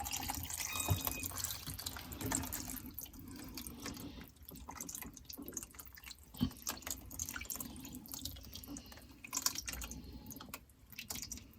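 A thick soup-and-broth mixture poured from a bowl over batter in a baking dish: soft pouring and dripping of liquid, with small clicks throughout and one sharper knock about six seconds in.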